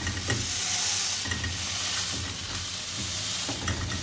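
Green peas sizzling in a little oil in a non-stick frying pan while a metal pav bhaji masher presses them: a steady frying hiss with a few light taps and scrapes of the masher against the pan.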